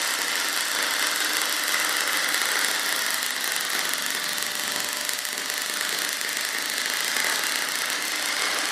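MIG welder arc crackling steadily as steel brackets are welded.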